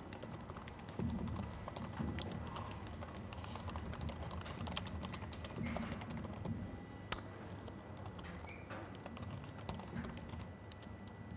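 Typing on a laptop keyboard: a faint run of light, irregular key clicks, with one sharper click about seven seconds in.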